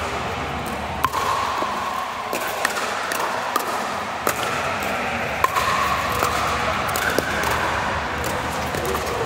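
Pickleball rally: sharp pops of paddles striking the hard plastic ball, irregularly about once a second, over steady background noise.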